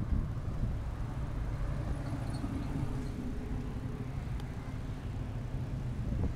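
A car engine running at low speed, a steady low rumble.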